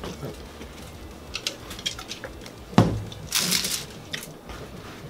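Small sounds at a table: scattered light clicks, then a plastic cup set down on the tabletop with a single thump just under three seconds in, followed by a short hiss.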